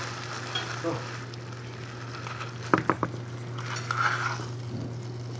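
Food sizzling in a frying pan, with three sharp knocks of a utensil against the pan close together about three seconds in, over a steady low electrical hum.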